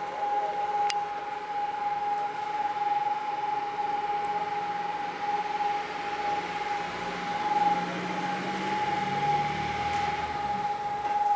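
Air-raid siren sounding one steady, unwavering tone. A low hum swells briefly underneath it between about seven and ten seconds in.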